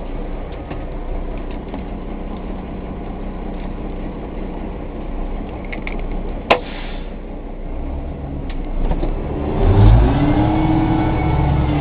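Dump truck's diesel engine idling, with a single sharp clunk about six and a half seconds in as the hoist controls are worked. From about eight seconds the engine revs up, its pitch rising and easing, to drive the hydraulic hoist that tips the dump box.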